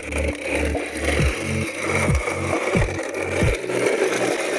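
Background electronic music with a steady kick-drum beat and bass, over the scraping of a plastic toy bus's wheels being pushed across wet concrete.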